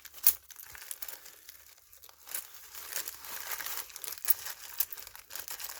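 Parcel wrapping being pulled open by hand: irregular crinkling and tearing with many sharp little crackles.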